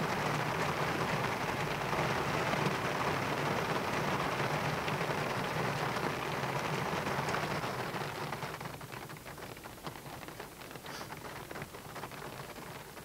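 Heavy rain falling steadily. After about eight seconds it eases into a quieter patter of separate drops.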